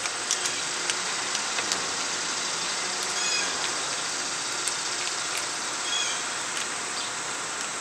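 Steady outdoor background hiss with a few light clicks and taps from a screwdriver and tiny screws being handled. Two brief high chirps sound about three seconds and six seconds in.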